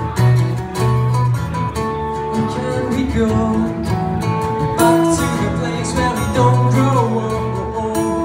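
Two acoustic guitars strumming chords together, the chords changing every second or so.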